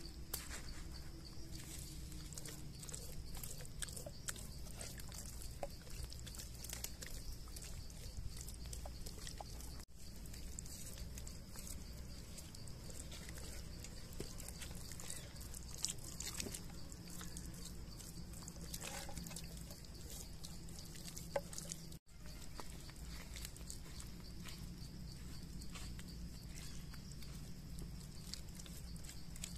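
Wet squishing and small clicks of hands rubbing a spice paste into a raw whole chicken, over a steady low hum.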